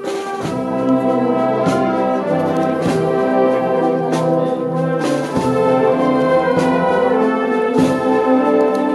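Brass band playing a slow processional march, trumpets and trombones holding sustained chords, with a drum stroke every second or so.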